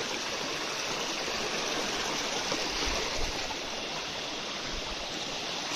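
Small mountain stream flowing: a steady, even rush of water.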